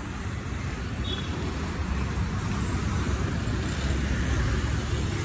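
Steady rumble and hiss of wind and tyre noise on an action camera's microphone while riding a mountain bike, growing slightly louder.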